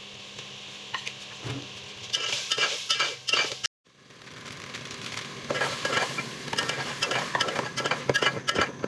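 Food sizzling in a hot pot while a utensil repeatedly scrapes and stirs it, with clicks of metal against the pot. The sound cuts out abruptly for a moment a little under halfway through, then the stirring and sizzling carry on.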